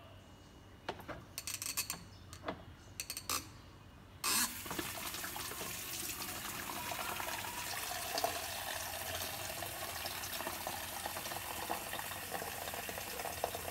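Water running from a tap into a plastic water dipper. It is preceded by a few light knocks and starts suddenly about four seconds in, then runs steadily.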